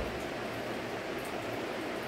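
Steady background hiss of room noise, like a fan or air conditioner running, with one brief low thump right at the start.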